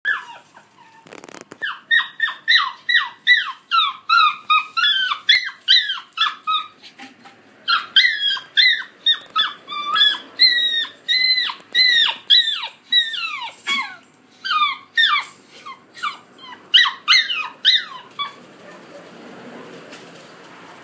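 A rough collie puppy yapping: a rapid run of short, high-pitched barks, about three a second. There is a brief break about seven seconds in, and the yapping stops near the end.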